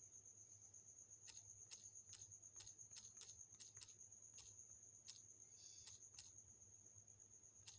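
Near silence: a faint, steady, high-pitched trill runs throughout, with about a dozen soft clicks at irregular intervals.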